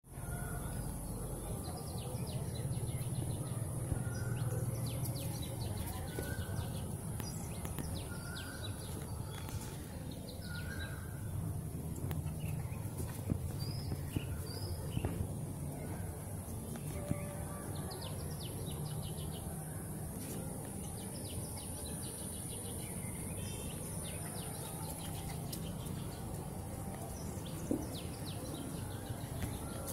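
Outdoor ambience: small birds chirping in short repeated calls over a steady high hiss and a low background rumble, with a few faint clicks.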